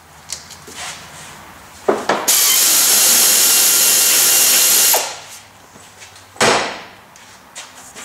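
A cordless power driver with an 8 mm socket runs in one burst of about two and a half seconds, starting and stopping suddenly, loosening a hose gear clamp. A few clicks come before it and a sharp knock a second or so after.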